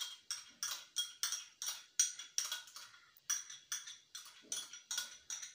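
A plastic yogurt pot being scraped out into flour, giving a run of short, sharp scraping strokes at about three a second.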